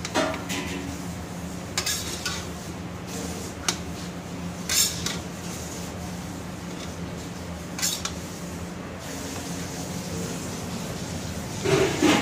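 Steel ladle knocking and scraping against a wok while stir-frying rice: about seven separate clinks spread out over a steady low hum, with a louder clatter near the end.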